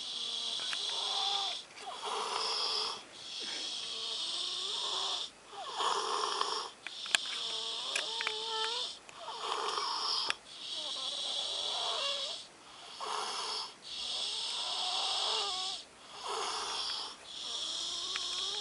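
Loud, nasal snoring from a sleeper, breath after breath in an even rhythm, each lasting about a second and a half, with wavering whistling notes on many of the breaths.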